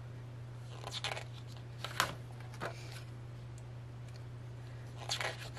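Pages of a photo book being handled and turned: a few short, soft paper rustles and light taps, over a steady low hum.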